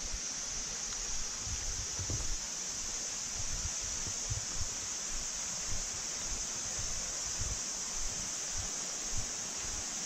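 Steady rushing of a rocky mountain stream, with low irregular thumps underneath.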